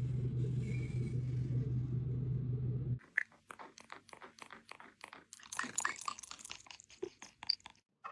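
A steady low hum that cuts off about three seconds in. Then rapid, irregular crunching clicks of a parrot chewing something with its beak.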